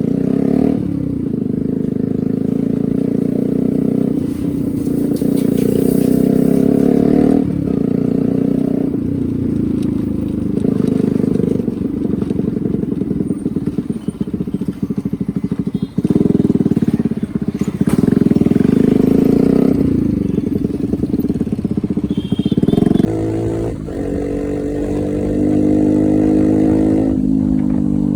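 Yamaha R15 V2's 150cc single-cylinder four-stroke engine riding in traffic. Its pitch rises and falls through repeated revs, with brief drops between gears. About 23 s in it settles to a steady idle, then revs up again near the end.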